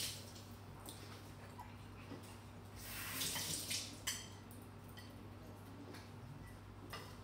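Kitchen sink tap running briefly, water splashing for about a second and a half around three seconds in, ending with a click. A low steady hum sits underneath throughout.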